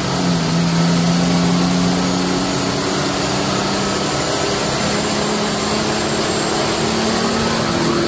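Sixteen-cylinder engine heard from inside the cab of an old vehicle on the road. Its note drops in pitch right at the start, then climbs slowly as it pulls, over steady road and wind noise.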